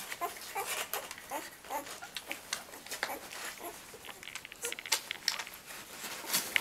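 A litter of two-week-old puppies nursing and being licked by their mother: a busy stream of wet suckling and licking smacks, with short faint puppy squeaks and whimpers throughout.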